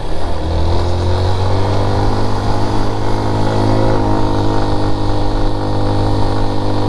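Motorcycle engine pulling hard up a steep hill climb, a steady drone whose pitch rises in the first second and shifts slightly about four seconds in. The bike is labouring on the slope.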